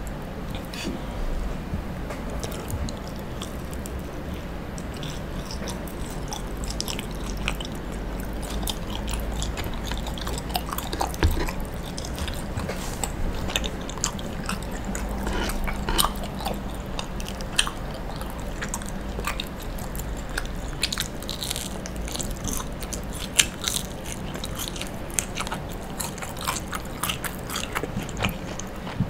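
Close-miked chewing of grilled, browned mochi: soft, sticky mouth sounds with many small clicks and smacks, irregular throughout.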